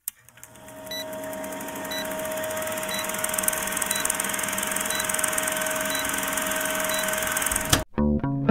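Old-film countdown leader effect: a film projector's steady rattling whir with hiss and a low hum, and a short high beep about once a second, seven times. It ends with a sharp click, and guitar music comes in just after.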